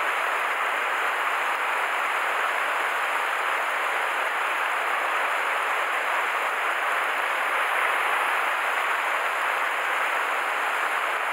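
Shallow mountain headwater stream running fast over rocks and through a riffle: a steady, even rush of water.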